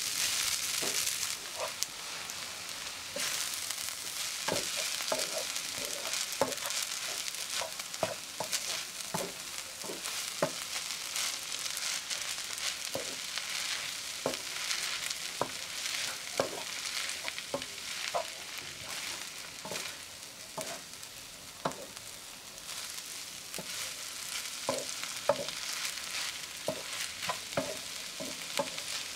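Rice vermicelli and long beans sizzling in a hot wok while being stir-fried, a steady sizzle with irregular light knocks and scrapes of the spatula against the pan, about one or two a second.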